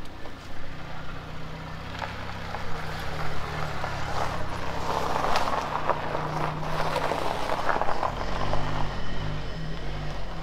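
Car engine running at low speed as the car drives slowly in and pulls up, with tyre noise on the dirt. Wind buffets the microphone near the end.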